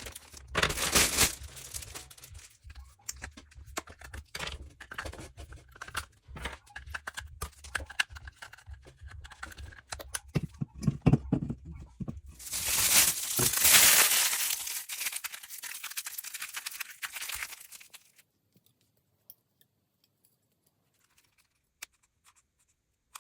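Hands handling materials: rustling, crinkling and rubbing with scattered clicks and knocks. A long, loud rubbing stretch comes about twelve seconds in and stops about six seconds later.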